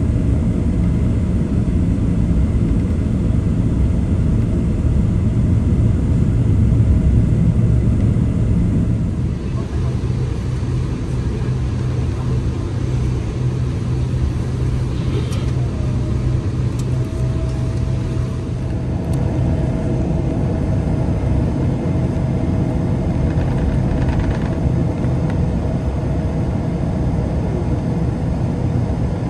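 Cabin noise of a Boeing 777-300ER taxiing, heard from a window seat over the wing: a steady low rumble from its GE90 engines at taxi power and the rolling gear. A low hum fades about two-thirds of the way through, and a faint higher steady tone comes in a little before it.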